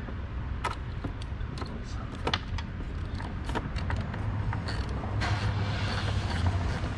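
Scattered light clicks, knocks and creaks of hands working down beside a Corvette's plastic engine cover, over a steady low hum. A hissing rustle thickens in the last two seconds.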